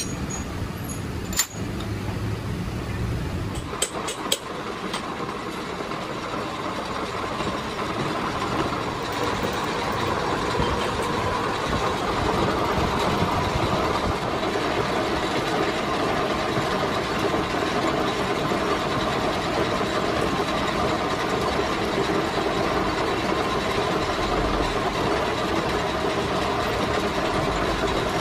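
Gear hobbing machine running, its hob cutting helical teeth into a metal gear blank: a steady machining noise that builds over the first several seconds and then holds. A few sharp metal clinks come near the start.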